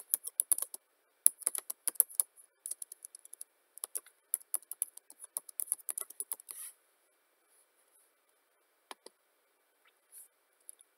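Typing on a computer keyboard: a quick, uneven run of key clicks for about six and a half seconds, then a few scattered single clicks.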